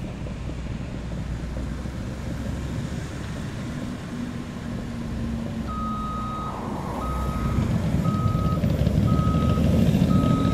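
Caterpillar D5 crawler dozer's diesel engine running. About halfway through its reverse alarm starts beeping, about once a second, as the dozer backs up. The engine grows louder near the end.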